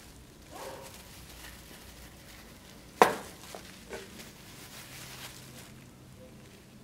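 A sharp clack as a hard object is set down on the workbench about three seconds in, followed by two lighter knocks. Soft handling rustles from the gloved hands run around it.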